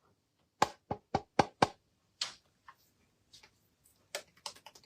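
A quick run of sharp knocks and clicks, about six in just over a second, then a single one and a cluster of lighter clicks near the end: small objects being handled and set down.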